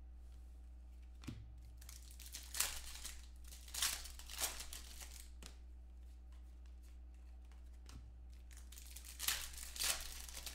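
Clear plastic wrapper of a trading-card pack being torn open and crumpled, in crinkly bursts in the first half and again near the end, over a steady low electrical hum.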